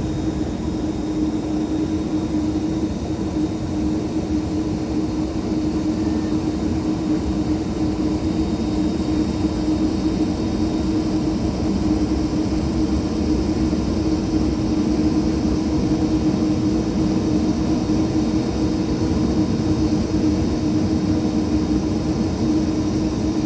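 Jet airliner engines running steadily: a constant drone with a steady tone in it, growing slightly louder partway through.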